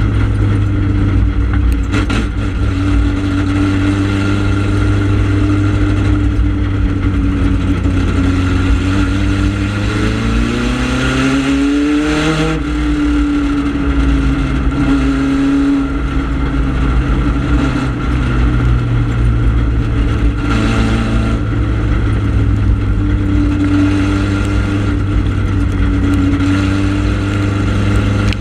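Four-cylinder ministock race car engine running hard under race load, heard from inside the cockpit. Its pitch climbs for a couple of seconds about ten seconds in, then falls away again, with a smaller dip a little later.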